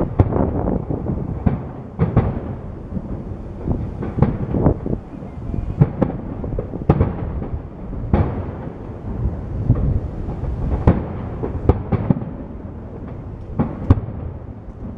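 Aerial firework shells bursting over and over, a dozen or more deep booms a few tenths of a second to a second apart, each trailing off in a rolling rumble.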